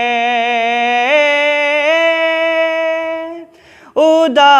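A man's solo unaccompanied voice singing a Urdu noha, a mourning lament, holding one long drawn-out note that steps up in pitch twice. A short break comes about three and a half seconds in, then the next line begins.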